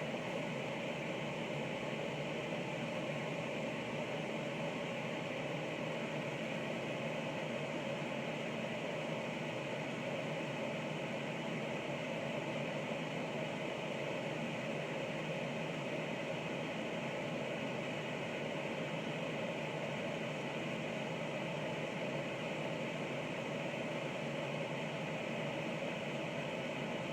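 Small camera drone's propellers and motors running steadily in flight: an even, unchanging whir with faint steady tones in it.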